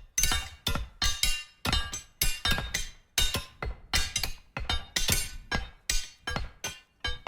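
Metal objects struck again and again: sharp clanks, each followed by a short metallic ring, about two to three hits a second.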